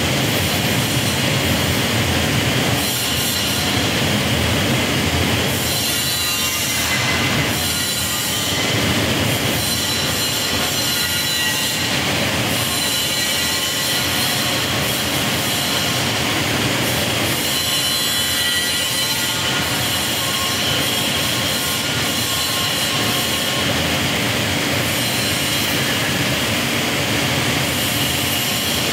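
Steady mechanical din of workshop machinery with a high-pitched whine running through it.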